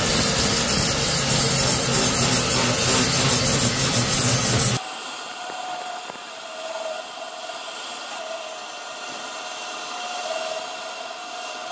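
Electric angle grinder with an abrasive disc grinding plasma-cutting slag off a steel saw blade: a loud, harsh grinding noise with a high whine. About five seconds in, the sound drops abruptly and stays much quieter.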